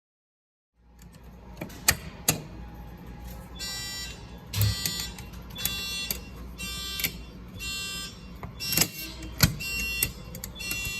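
Simplex 4903-9219 fire alarm horn strobes sounding in short blasts of about half a second, repeating roughly once a second, during a fire alarm system test. Two sharp clicks come just before the horns start, about three and a half seconds in.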